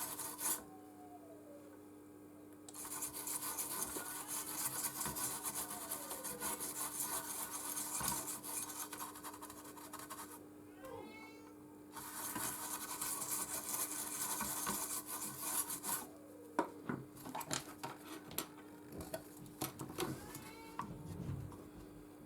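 Scrubbing flux residue off a PS4 circuit board around a freshly soldered HDMI port. It comes in two long stretches of rough rubbing with a short pause between, then lighter scrapes and clicks near the end.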